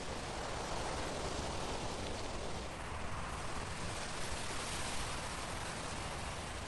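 Steady outdoor ambience: an even, soft rushing noise with no distinct calls or events.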